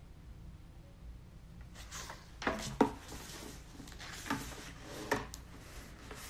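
A picture book being handled: pages rustling and a few short, soft knocks as it is lowered onto a wooden tabletop and its page turned, the loudest knock just under three seconds in.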